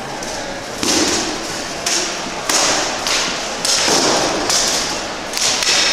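SCA heavy-fighting blows: rattan swords striking a shield and armour, about six sharp cracks and thuds in quick succession, each with a short echo.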